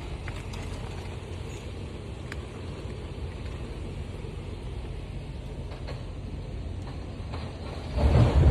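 Hurricane-force wind rumbling against the microphone, with a much stronger gust buffeting it about eight seconds in.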